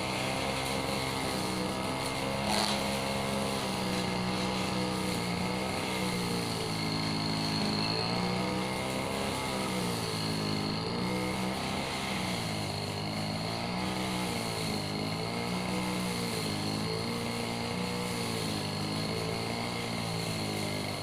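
Petrol grass trimmer (brush cutter) engine running at high speed, its pitch rising and falling as the throttle is worked while cutting a hedge, with a steady high whine over it.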